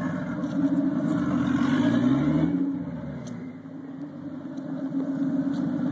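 Toyota 7M-GTE turbocharged inline-six in a 1985 Celica Supra, heard through its exhaust: the revs climb about two seconds in, fall away, and the engine settles back to a steady idle.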